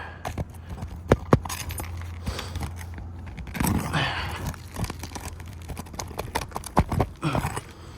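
A metal roofing tool scraping and prying under asphalt shingles to work the roofing nails loose, with a few sharp clicks and knocks.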